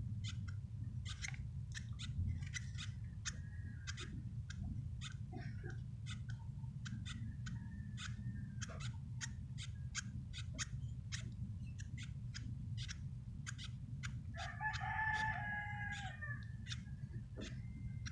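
Lovebird chicks begging while being fed beak to beak by a parent: a rapid, irregular run of soft clicks and short chirps, with a longer, louder squealing call about fifteen seconds in. A steady low hum runs beneath.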